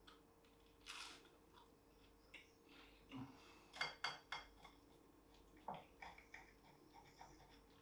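Steel knife and fork clinking and scraping on a ceramic plate while cutting through crusty toast, a string of short clicks and scrapes, the loudest two ringing briefly about four seconds in.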